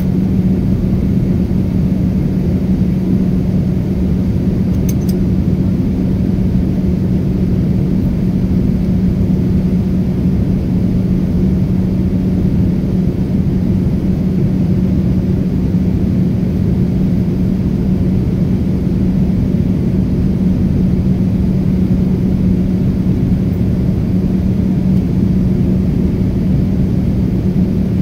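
Steady in-flight cabin noise of a Boeing 787-9 heard from a window seat beside the engine: a constant rumble of engine and airflow with a steady low hum.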